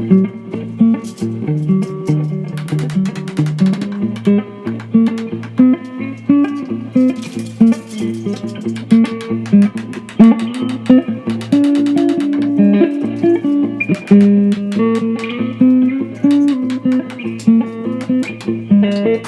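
Guitar music: a handmade guitar played with plucked notes over a pulsing low bass line.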